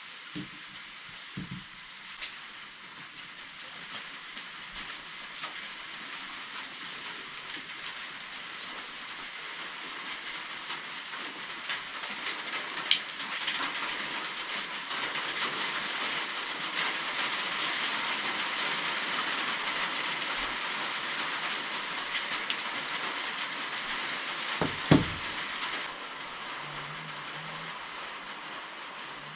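Small clicks and knocks from hand work on an unplugged angle grinder while its carbon brushes are fitted, over a steady hiss that swells through the middle. The loudest sounds are a sharp click about 13 seconds in and a knock about 25 seconds in.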